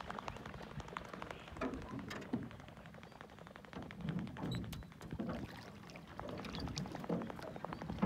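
Common loon running across the lake surface with its wings beating, a rapid patter of splashes and slaps on the water that comes in bursts about once a second. It is a territorial chase, driving intruding loons off the lake.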